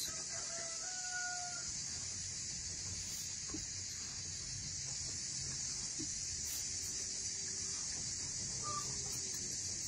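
Chickens calling and clucking in the background, with a few short pitched calls near the start and again in the second half, over a steady high hiss.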